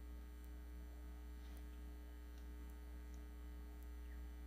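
Steady low electrical mains hum on the recording line, with a few faint ticks.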